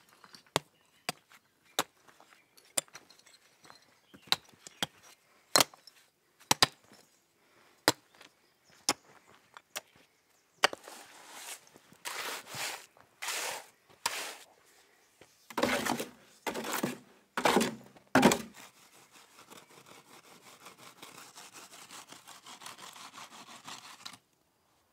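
A steel shovel working wet concrete into a brick fire pit: first a string of sharp taps and clicks, then, from about ten seconds in, longer scrapes as shovelfuls of concrete are scooped and dumped.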